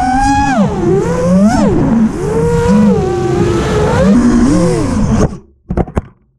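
A 7-inch FPV quadcopter's 2508 1200kv brushless motors and tri-blade props whining, the pitch rising and falling sharply with throttle punches, heard from the onboard camera. The whine cuts off abruptly about five seconds in as the quad sets down, followed by two brief knocks.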